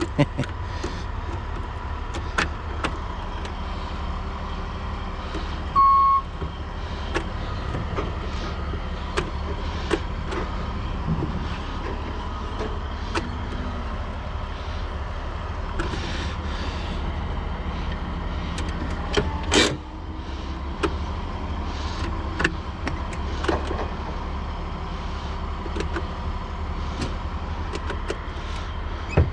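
An engine idling steadily, with scattered clicks, a short beep about six seconds in and a sharp knock at about twenty seconds.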